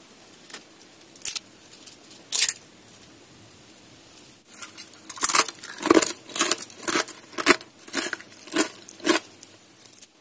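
Crisp fried peanut crackers (rempeyek) crackling and snapping as pieces are handled by hand. A few single snaps come first, then a run of about eight sharp crunches roughly half a second apart in the second half. The sound shows how crisp the crackers are.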